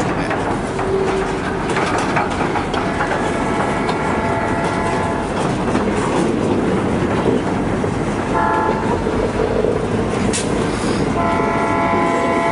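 Freight train boxcars rolling slowly past with steady wheel rumble and clatter, while a train horn sounds three blasts: a long one, a short one, then another long one.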